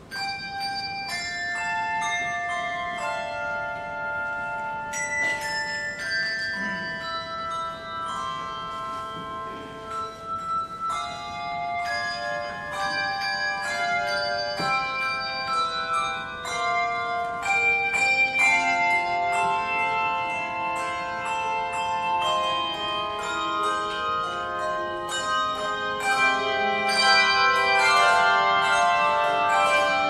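A handbell choir ringing a hymn arrangement: many struck bells sounding together, their notes overlapping and ringing on, growing louder toward the end.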